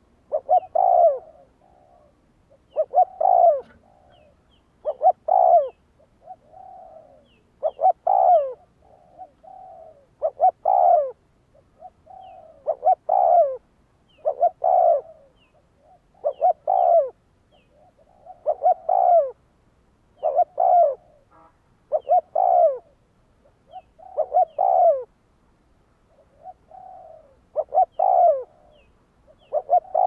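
Spotted dove cooing: short phrases of a few coo notes repeated about every two seconds, with softer coos between some of them.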